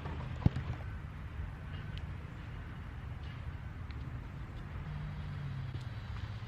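Steady low rumble of car traffic on a nearby road, with a single sharp click about half a second in.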